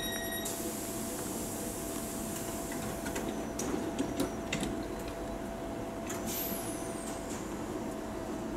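Tyne and Wear Metro Metrocar standing at a platform, its equipment giving a steady hum with a thin steady whine. A run of sharp clicks and knocks comes in the middle as the sliding doors close, and a brief high falling whistle follows.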